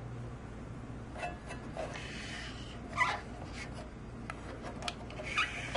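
Small metal instrument enclosure being turned and slid by hand on a wooden desktop: soft scrapes, rubs and light knocks, the loudest scrape about three seconds in and another near the end.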